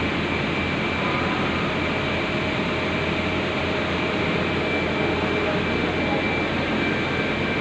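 Steady machinery noise in an electric-wire factory hall: a constant low hum with a thin, high, even whine over it from the wire-making machines and plant.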